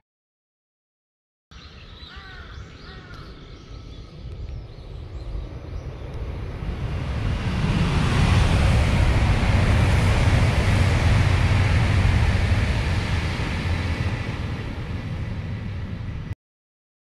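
Shinkansen bullet train passing at speed close by: a rushing rumble builds, is loudest midway and then recedes. A few short bird calls come early on the rising sound.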